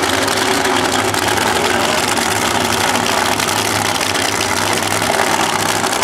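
Two Funny Cars' supercharged nitromethane V8 engines idling, a loud, steady, rough-running sound with no revving.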